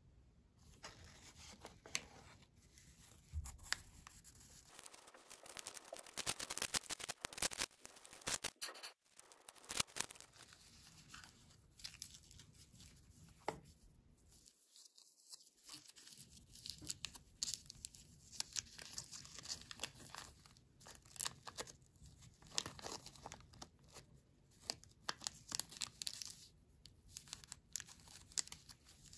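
Small printed wrapper of a Toybox toy packet being torn open and crinkled by gloved hands, in many short tearing and crackling rips with a brief pause about halfway.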